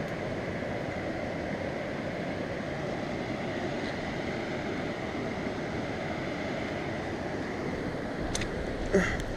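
Steady rushing of a river running fast and high in flood.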